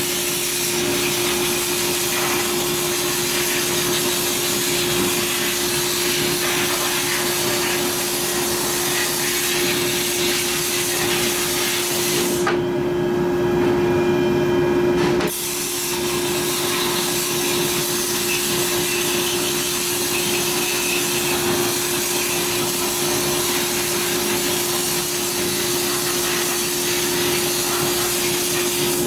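Blast-cabinet air gun hissing as it blasts abrasive media onto an aluminium engine cover, over a steady hum. About halfway through the hissing stops for roughly three seconds while the part is turned, then starts again.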